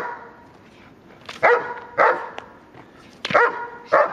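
Large white dog barking at a protection-training helper, about five loud barks coming mostly in pairs half a second apart.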